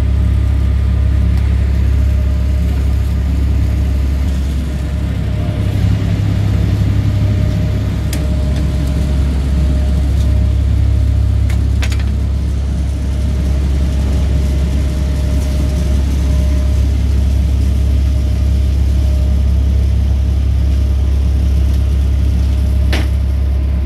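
Boat engine running with a steady low drone, with a few faint clicks over it.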